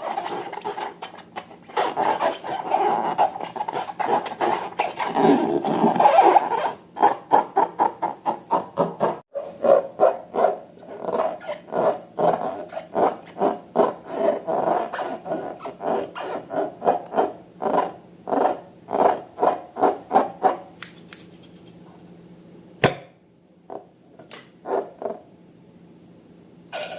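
Rubber balloon squeaking as it is rubbed and squeezed. First comes a few seconds of steady squeaking, then a quick run of short squeaks, about two or three a second. Near the end it dies down to quieter handling with one sharp click.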